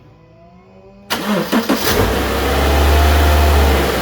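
2011 Subaru Legacy's 2.5-litre SOHC flat-four engine cranked by the starter about a second in. It catches, runs louder for a moment in a start-up flare, then eases toward idle. This is the first start after a new serpentine belt, belt tensioner and idler pulley were fitted.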